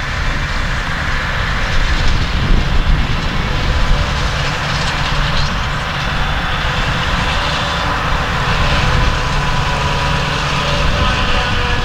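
Claas Jaguar 940 self-propelled forage harvester at work chopping grass, its engine and chopping gear running as a loud, steady machinery noise with a low rumble. Tractor engines work alongside, and a steady engine note grows stronger near the end.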